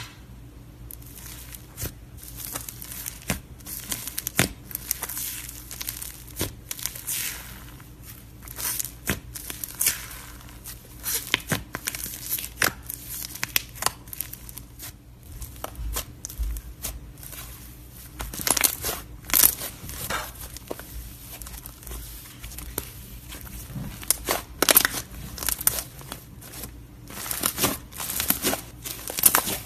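Thick slime being poked and pressed by hand, making irregular sticky crackles and pops, which come thicker and louder in the last third.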